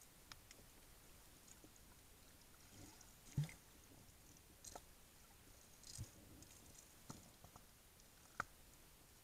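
Near silence underwater, heard through an action camera's waterproof housing: a faint steady hiss with a few scattered clicks and two dull knocks, a little over three seconds in and about six seconds in.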